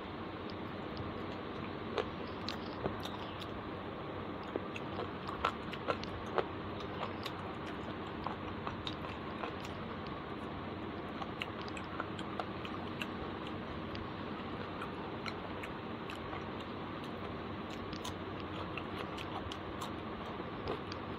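A person biting and chewing pieces of spicy chicken curry, with many small wet clicks and crunches scattered through it, the sharpest about two seconds in and again around five to six seconds. A steady hiss runs under it.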